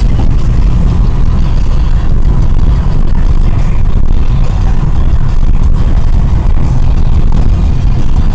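Car driving at freeway speed, heard from inside the cabin: a steady, loud, low rumble of road and wind noise.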